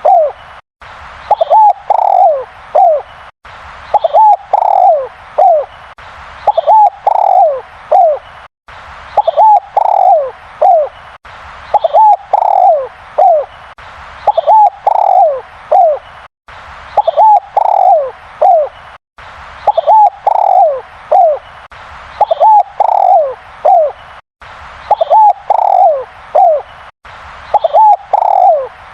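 Spotted dove (derkuku) cooing loudly in its full song, the same phrase of a few short coos followed by longer falling notes repeated about every two and a half seconds.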